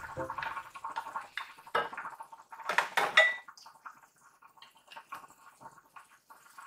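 A metal spoon clinking and clattering against a frying pan and a seasoning bottle, loudest about three seconds in, over faint sizzling from prawns frying in sauce.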